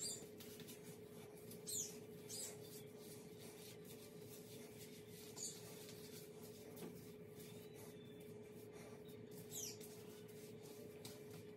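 Faint rubbing and squishing of hands working deep conditioner through wet, curly hair, five brief rustles over a steady low hum.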